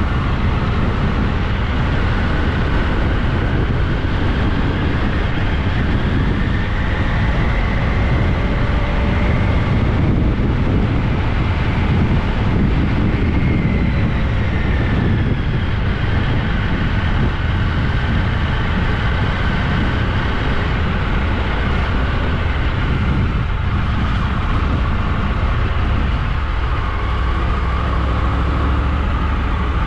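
Steady low rumble of vehicles in motion, with faint whining tones that slide up and down in pitch.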